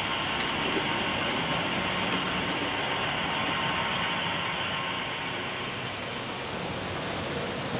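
Model railway train running along the track: a steady rolling noise that eases slightly about five seconds in.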